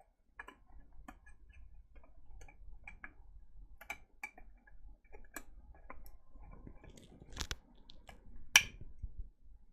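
Small clicks and taps of plastic and circuit-board parts being handled as a programmer's board is worked down into its plastic case, with two sharper clicks near the end, the second the loudest.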